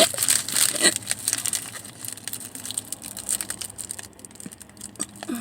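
Food packaging rustling and crinkling as it is handled, dense in the first second and then a scatter of light clicks and crackles.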